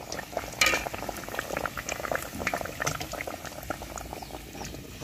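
Pancake dough deep-frying in a pot of hot oil: a steady sizzle and crackle of bubbling oil, briefly louder about half a second in.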